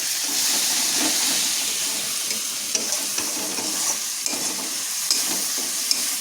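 Food sizzling as it fries in oil in a pan and is stirred, with a steady hiss and now and then the short click of the spoon against the pan.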